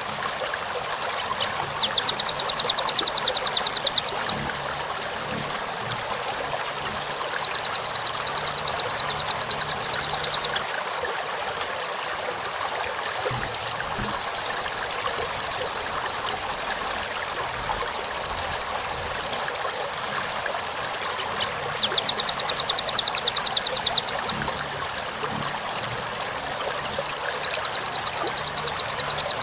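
A velvet-fronted nuthatch (rambatan) calling in rapid, high-pitched trills of sharp notes. The trills come in bouts of a few seconds, with a pause of about three seconds near the middle, over a steady background hiss.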